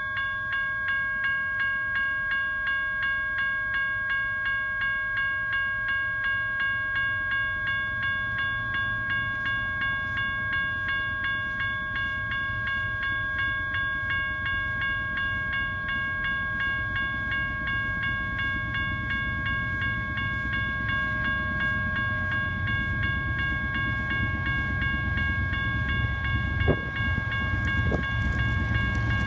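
Railroad grade-crossing warning bell ringing in a steady, even rhythm with the gates down, as a BNSF intermodal train approaches. The low rumble of the approaching diesel locomotive and train grows over the last several seconds.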